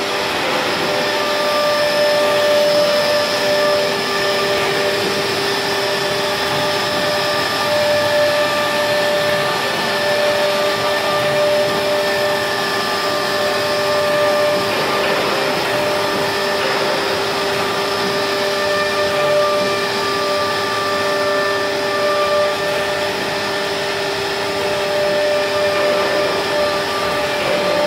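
Forsun 1325C nesting CNC router running, its spindle giving a steady whine of several held tones over a constant rushing noise like a vacuum.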